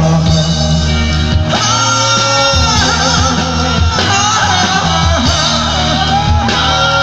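A live band playing loud through a stage PA, a singer holding long, wavering notes over guitar and a steady low backing.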